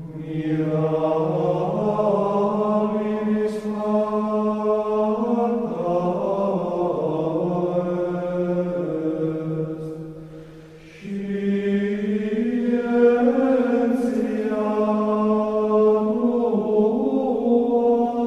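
Voices chanting in long held notes, in two phrases with a short break about ten seconds in.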